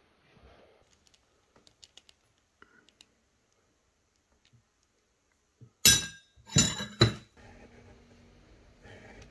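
Metal spoon clinking against a dish: three sharp, ringing clinks close together about six to seven seconds in, after a few faint taps.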